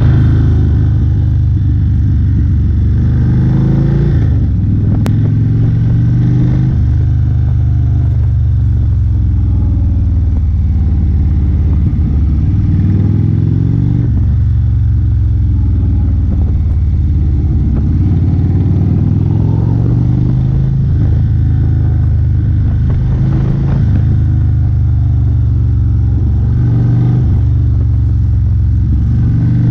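Indian motorcycle's V-twin engine running under way, heard from the rider's seat. Its note rises and falls every few seconds as the throttle is rolled on and off.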